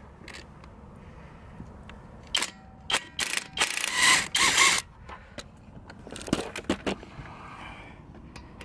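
Cordless impact wrench running in short bursts on brake caliper bolts, the longest and loudest about halfway through and two brief ones near the end, with loose clicks of the socket and tool being handled between them. The bolts come loose without the tool struggling.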